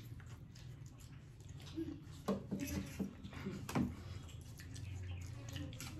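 Chowmein noodles being eaten fast by two people: wet slurping and chewing, with forks clicking against plates, the sharpest clicks a little after two seconds and just before four seconds in, over a low steady hum.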